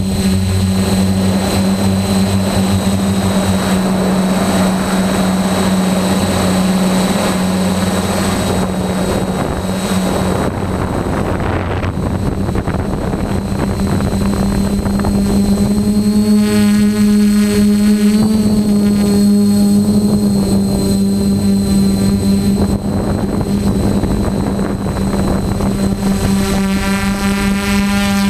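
DJI F450 quadcopter's four brushless motors and propellers in flight: a steady hum picked up by the camera on the airframe, with a rush of wind over the microphone in the first half.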